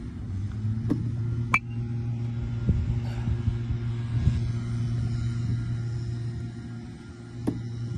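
Steady hum of a small pitching machine's motor running, with a few sharp knocks, one about a second and a half in and another near the end.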